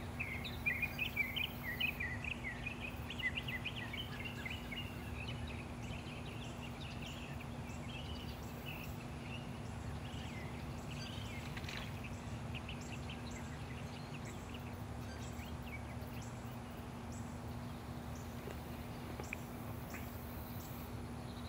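Outdoor ambience: a small bird chirping quick repeated notes for the first several seconds, thinning out after that, over a steady low rumble and a faint steady hum.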